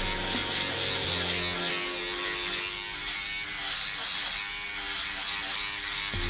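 Electric hair clipper buzzing steadily as it trims the beard along the jaw and chin.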